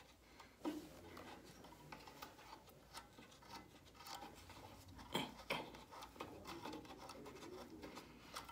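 Faint clicks and scraping from turning the height adjustment of a Dremel routing table by hand, with the motor off. The sharpest click comes about five seconds in.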